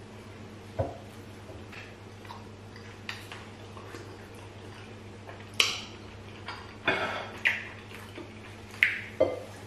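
Close-up eating sounds of rice balls and peanut soup eaten by hand: short wet smacks and clicks, one about a second in and a cluster of five or so in the second half, over a steady low hum.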